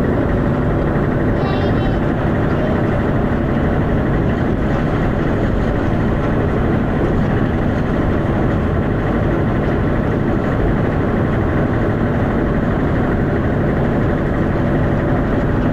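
Dennis Arrow double-decker bus heard from inside the saloon: its diesel engine running steadily with loud, even engine and road noise.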